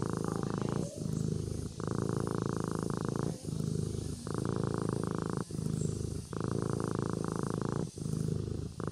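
A sleeping kitten purring: a continuous pitched rumble that swells and eases in cycles of about two seconds, following its breaths.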